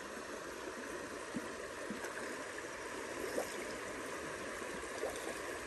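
Creek water flowing steadily, heard close to the water's surface, with a few small gurgles and plinks scattered through the rush.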